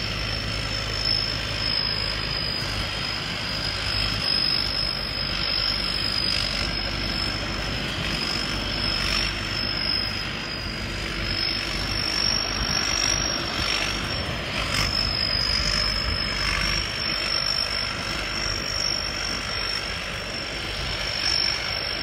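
Rice combine harvester's engine running steadily as the machine drives slowly along the field, with a steady high whine over the low rumble.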